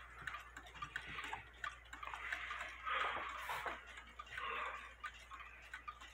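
Several mechanical cuckoo clocks and pendulum wall clocks ticking at once, their many quiet ticks overlapping out of step.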